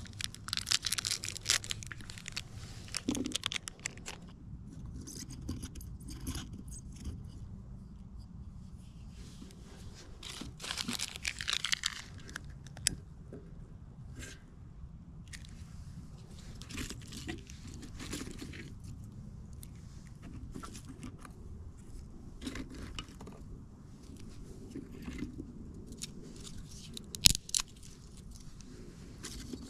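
Hands laying a campfire: a small packet torn open with crinkling near the start, then scattered rustles, scrapes and clicks as split kindling sticks are handled and laid in a metal fire pit, with one sharp knock near the end.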